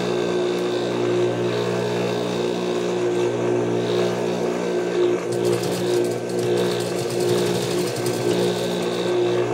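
Juki industrial sewing machine's motor humming steadily, with a run of rapid stitching through layered fabric strips about halfway through, lasting around three seconds.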